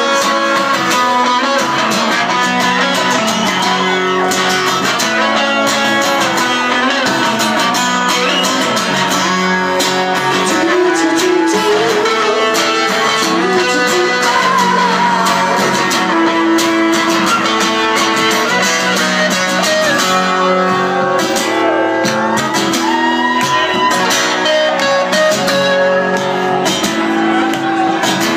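Live music from acoustic guitars: steady strumming with a second guitar playing a lead line over it during an instrumental passage, loud and continuous.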